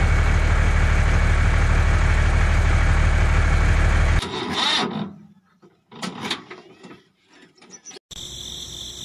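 Dubbed diesel truck engine sound effect idling steadily, cutting off abruptly about four seconds in. A few seconds of uneven, broken sputtering follow, as of an engine dying for lack of fuel. A steady hum with a high tone sets in near the end.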